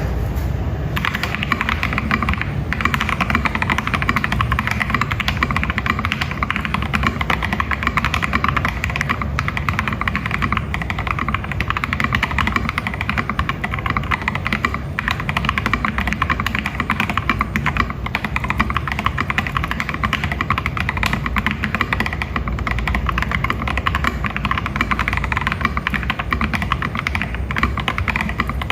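Continuous fast typing on an Akko 3098B mechanical keyboard with stock, unlubed LEOBOG Nimbus linear switches and JSA-profile keycaps: a dense, even stream of key strikes and bottom-outs. The sound is fairly low-pitched.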